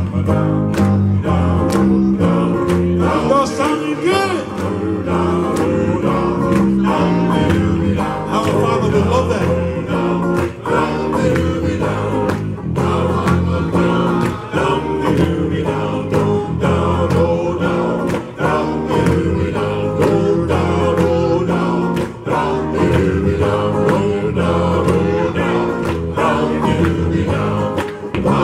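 Live band: a group of men singing together over electric guitar and electric bass.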